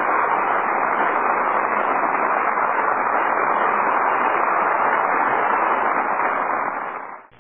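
A steady rushing noise with no tone or rhythm in it, at full programme level, cut off abruptly near the end.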